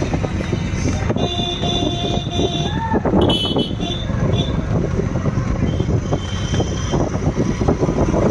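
Street traffic noise with vehicle horns tooting: one held horn note about a second in that rises at its end, and a shorter, higher toot about three seconds in, over a steady rush of traffic and wet-road noise.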